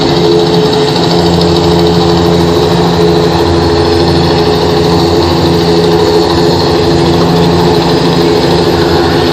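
Loud, steady drone from a concert sound system, several held tones with no beat, heard through a phone recording in the hall.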